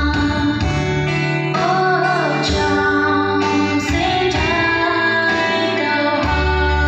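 A woman singing solo into a microphone over instrumental accompaniment with steady bass notes, holding long notes with vibrato about two seconds in.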